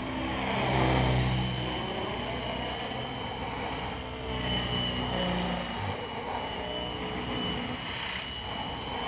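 Funcopter electric RC helicopter in flight: the rotor hum shifts up and down in pitch as it manoeuvres, over a steady high-pitched whine. The hum is loudest about a second in.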